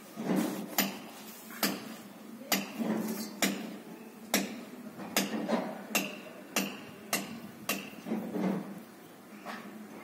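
Dry alyssum seed heads being rubbed and crushed between two palms to thresh out the seeds: about thirteen short, sharp strokes, roughly one every three quarters of a second.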